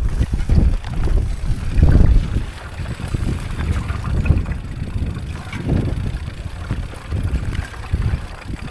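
Wind buffeting the microphone over the rumble and rattle of a mountain bike rolling down a rough, stony dirt singletrack, with irregular jolts from the rocks, the strongest about two seconds in.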